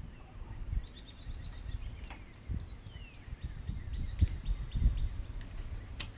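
Small metallic clicks and taps of a hand tool working the cotter pin out of the front spindle nut at the wheel hub, with a sharp click near the end. Birds chirp in the background.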